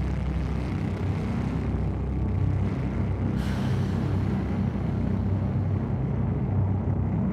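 A steady, loud low rumble with a hiss above it; the hiss grows brighter a little past the middle.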